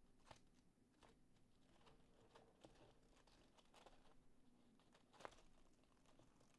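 Very faint handling noise: light rustles and scattered ticks of paper envelopes being flipped through, with one slightly louder tick about five seconds in.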